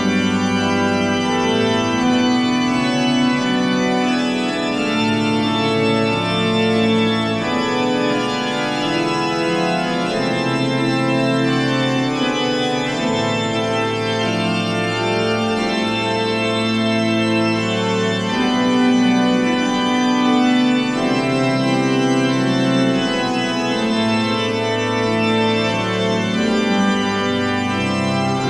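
Church organ playing slow, sustained chords over a bass line that moves from one held note to the next every couple of seconds.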